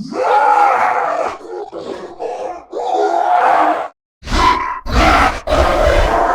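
Orc vocal sound effect: a string of gruff monster growls and short choppy grunts broken by brief pauses. There is a deeper, heavier growl about five seconds in.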